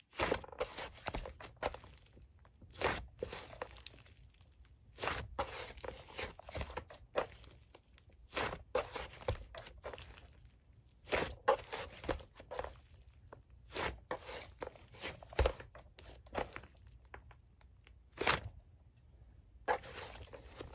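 Slime being pressed, squeezed and pulled by hand, giving irregular crunching clicks and pops.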